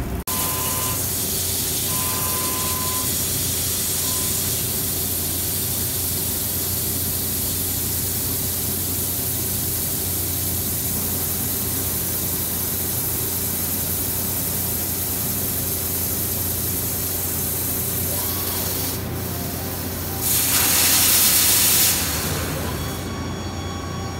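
Gantry CNC machining center peck drilling with coolant spraying at the tool: a steady loud hiss over a low machine hum. It swells louder for about two seconds near the end, then drops back with a thin whine.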